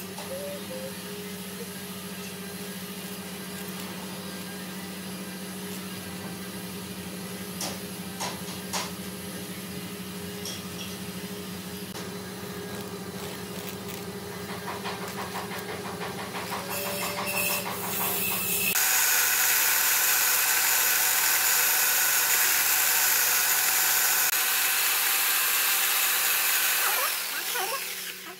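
Workshop machinery running: a steady motor hum with a few light clicks, then, about two-thirds of the way through, a sudden louder hissing rush that dies away shortly before the end.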